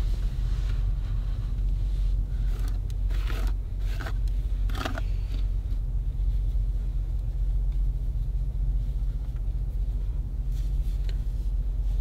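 A steady low rumble fills the vehicle cabin. A few short rustles of hands on hair and clothing come about three to five seconds in, and one more near the end.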